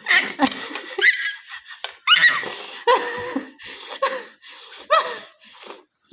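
High-pitched laughter in about eight short bursts.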